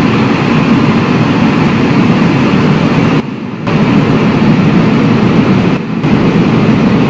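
Loud, steady rumbling noise from the logo intro's sound effect, dipping briefly about three seconds in and again near six seconds, then cutting off abruptly.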